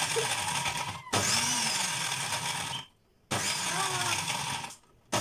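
Countertop blender grinding gingerbread biscuits into crumbs, run in pulses: the motor cuts off briefly about a second in, stops for half a second about three seconds in, then runs again and stops near the end.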